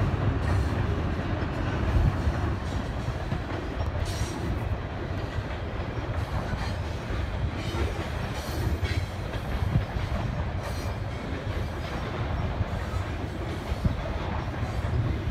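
Freight train of covered hopper cars rolling across a high steel trestle bridge: a steady rumble of wheels on the rails, with a few clicks.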